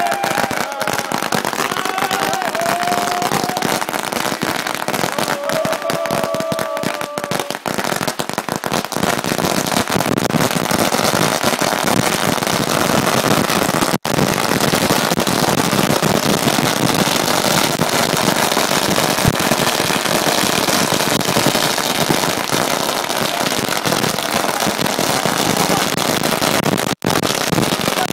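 Firecrackers going off in a long, rapid, unbroken string of bangs and crackling, getting denser and steadier after about ten seconds.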